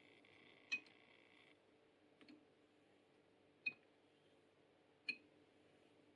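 Four faint, sharp clicks about a second and a half apart, with near silence between them: a straight razor's spine tapping the hone as the blade is flipped between honing strokes.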